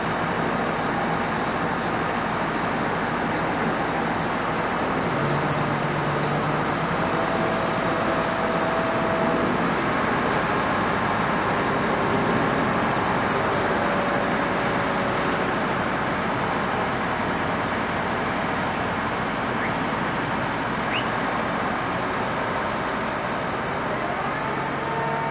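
Steady engine noise, with faint humming tones that come and go.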